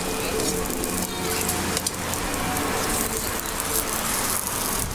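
Steady sizzling hiss from the bungeoppang griddle, with batter cooking in hot cast-iron fish-shaped molds, and a few light clicks of utensils against the iron as red bean paste is added.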